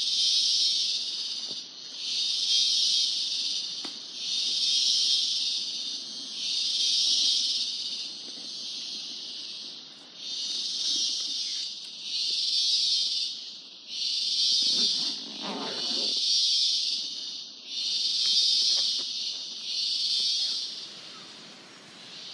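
Rainforest cicadas buzzing in loud, high-pitched pulses that swell and fade about once every two seconds, roughly ten times. About fifteen seconds in there is a brief lower-pitched rustling noise.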